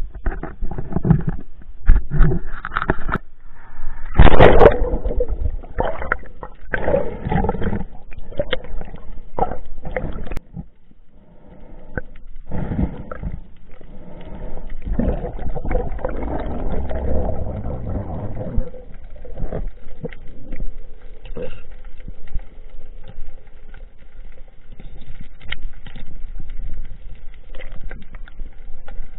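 Water splashing and gurgling around a camera mounted on a free diver's snorkel, loud and irregular with sloshes and knocks. About two-thirds of the way through it gives way to a quieter, muffled underwater noise.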